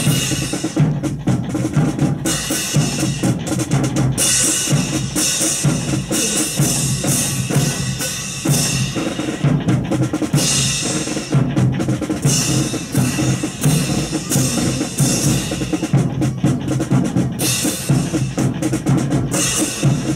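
Marching percussion section playing a rhythmic drum cadence with snare and bass drums, with bright crashes recurring every few seconds.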